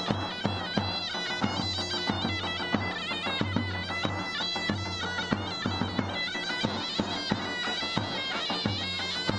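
Folk dance music: a shrill reed pipe plays a sustained melody over a low drone and steady drum beats.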